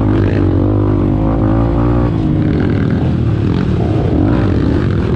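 KTM Adventure motorcycle's engine running hard on a trail ride, its pitch rising and easing off as the throttle changes.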